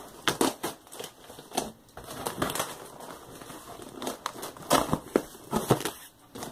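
Duct tape being slit with a utility knife and pulled off a cardboard box: irregular scraping, crinkling and tearing of tape and cardboard, with several louder bursts.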